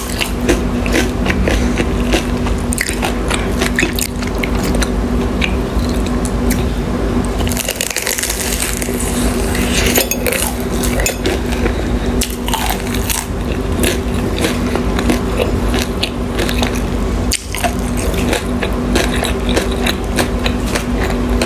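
Close-miked mukbang eating of dim sum: wet chewing and biting with frequent sharp clicks of utensils against a dish, over a steady low hum. About eight seconds in there is a couple of seconds of louder hissing noise.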